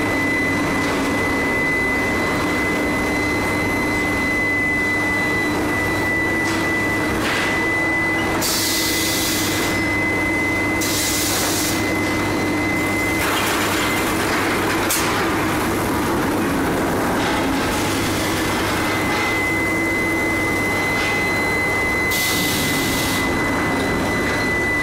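Billet electric heating furnace running: a steady industrial drone with a constant high-pitched whine and a low hum, broken by a few short bursts of hissing.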